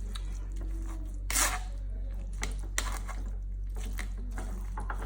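Turnip pulp soaked in honey being pressed in a strainer to squeeze out its juice: a few short pressing sounds, the loudest about a second and a half in, over a steady low hum.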